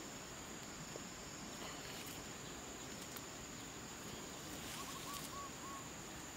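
Forest ambience: a steady high-pitched insect drone over a faint hiss, with a few soft ticks and rustles of hands in leaf litter, and a short run of four soft chirps about five seconds in.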